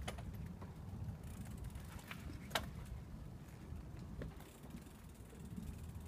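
Bicycle rolling along a boardwalk: a steady low rumble of the tyres over the planks, with a few separate clicks and rattles from the bike, the loudest about two and a half seconds in.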